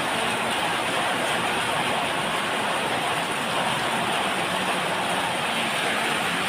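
Rain pouring down, a steady even hiss with no breaks.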